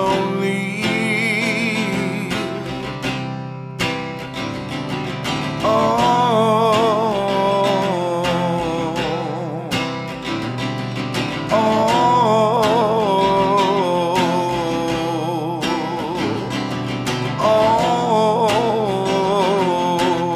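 A 1916 Gibson harp guitar is played with a man's singing over it. Three long sung phrases with a wide vibrato start about 6, 12 and 17.5 seconds in.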